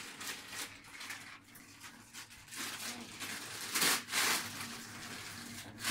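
Christmas wrapping paper crinkling and tearing as a present is unwrapped by hand, with two louder rips about four seconds in.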